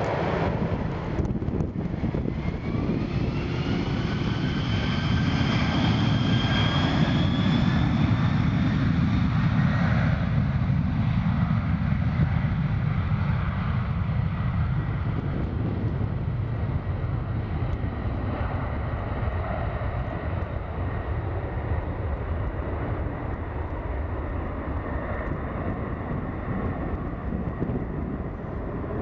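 Boeing 767-300ER's twin Pratt & Whitney PW4060 turbofans spooling up to takeoff thrust: a whine rising in pitch over the first few seconds, then a steady low rumble from the engines as the jet rolls down the runway, easing off in the second half as it moves away.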